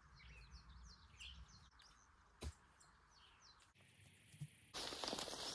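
Small birds chirping in quick sweeping calls against faint background noise, with one sharp click about two and a half seconds in. Near the end the sound cuts and a louder, hissy noise starts.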